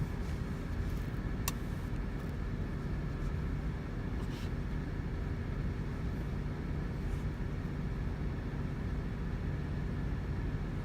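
Tractor engine running steadily under load, a constant drone with a steady high whine over it, and a single sharp click about a second and a half in.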